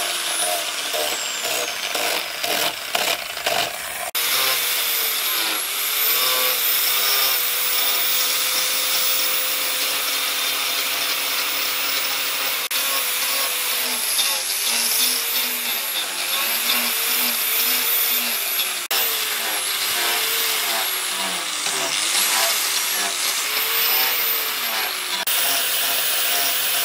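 Electric angle grinder with a rubber backing pad sanding a wooden knife handle. The motor whine sags and recovers over and over as the pad is pressed into the wood and eased off.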